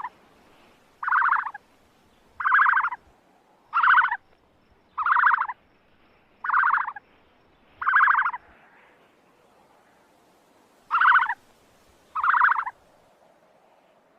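An ostrich calling over and over: short buzzy calls about half a second long, roughly one every second and a half, with a longer pause a little after the middle.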